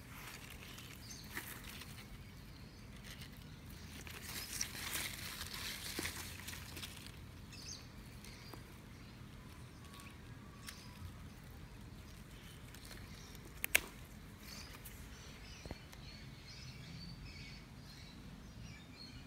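Strawberry plant leaves and stems rustling as a hand handles and picks among them close to the microphone, loudest from about four to seven seconds in. One sharp click comes just before fourteen seconds.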